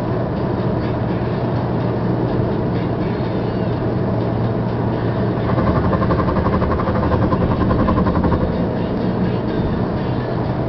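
Car cabin noise while cruising on a highway: steady engine hum and tyre road noise. For about three seconds midway it grows slightly louder with a rapid pulsing buzz.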